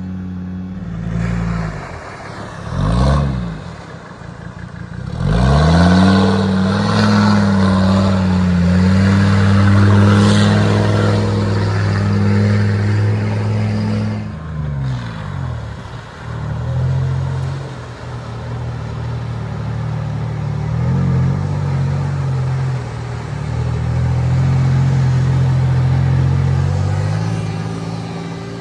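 Off-road vehicle engines revving hard while driving through deep water. There is a short rev about three seconds in, then the engine climbs and holds a loud steady pull for several seconds before falling away, and a second engine runs steadily through the water for the rest of the time, over the hiss of spray.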